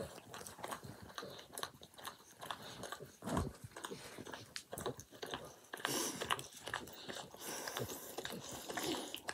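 A dog licking a person's face up close: a run of quick, irregular wet licks and mouth smacks.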